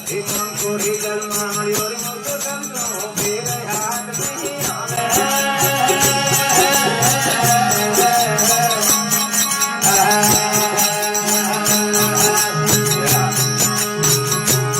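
Desi bhajan folk music: a steady drone under a wavering melody, with continuous jingling metal percussion keeping the beat. The melody gets louder about five seconds in.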